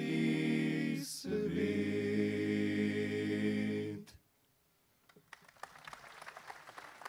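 An a cappella choir with deep bass voices sings the closing word of a Slovenian folk song, ending on a long held chord that cuts off about four seconds in. After a moment of near silence, applause starts and carries on.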